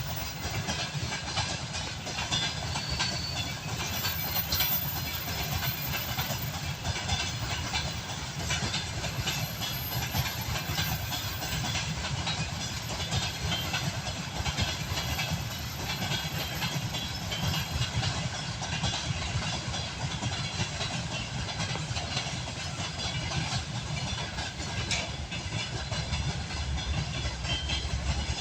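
Freight train rolling past at steady speed, its wagons' wheels clattering over the rail joints with a continuous low rumble. A faint high squeal comes and goes in the first half.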